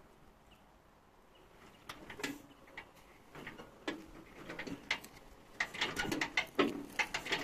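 Faint, irregular clicks and rustling from a starter rope being drawn taut on the flywheel pulley of a tak tak farm tractor engine. The engine is not running.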